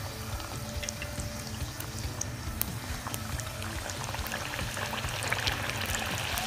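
Hot oil sizzling and crackling around puris deep-frying, with many small pops, as a slotted skimmer holds them under so they puff up. The sizzle grows a little louder near the end.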